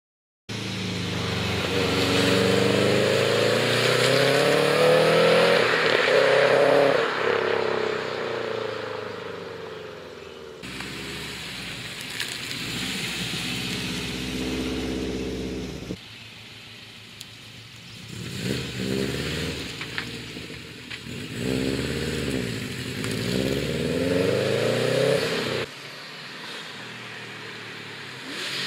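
Subaru car engine pulling and revving through the gears, its pitch rising and falling again and again. It is heard in several short clips that cut abruptly from one to the next, about ten, sixteen and twenty-six seconds in.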